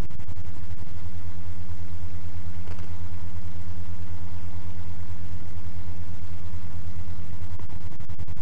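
Loud, steady low hum with a fast buzzing flutter. A faint knock comes about three seconds in.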